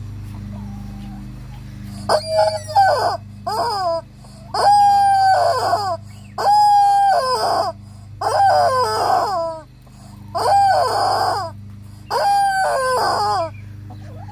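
Squeezed rubber chicken toy squawking, about seven long, loud, pitched honks in a row starting about two seconds in, each lasting around a second, over a steady low hum.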